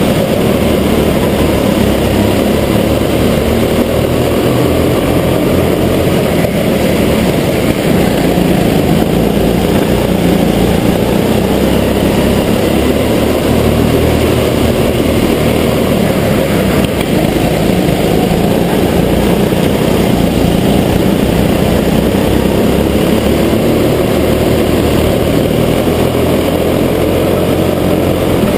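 Rental go-kart engine running loud and steady at racing speed, heard up close from on board the kart.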